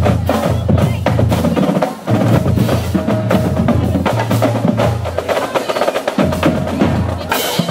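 Marching band drumline playing a fast cadence: snare drums rattling rapid strokes and rolls over tuned Pearl marching bass drums that step between pitches.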